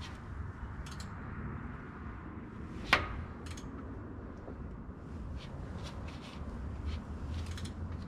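Hand-tool work on an engine in a workshop: one sharp knock with a short ring about three seconds in, and a few faint clicks, over a low steady rumble.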